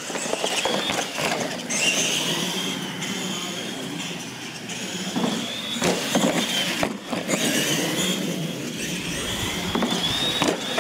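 Radio-controlled monster trucks racing across a concrete floor, their motors and gears whining and rising and falling in pitch with the throttle, with a few sharp knocks along the way.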